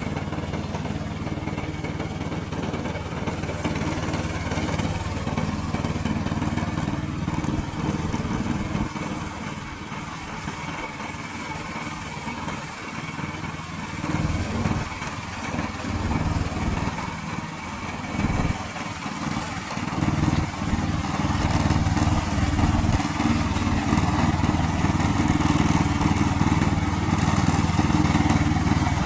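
Remote-control slope mower running steadily with an engine-like drone. It eases off for a few seconds partway through, then grows louder toward the end.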